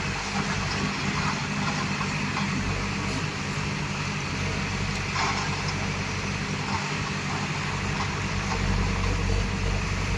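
Heavy earthmoving machine's diesel engine running steadily, with a few faint knocks about three and five seconds in.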